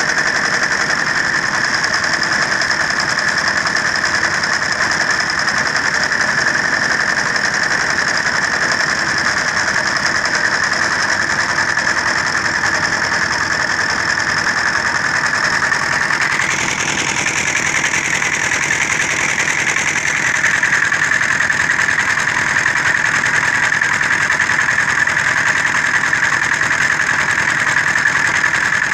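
Diesel engine driving a concrete mixer/blender, running steadily. Its tone shifts about sixteen seconds in.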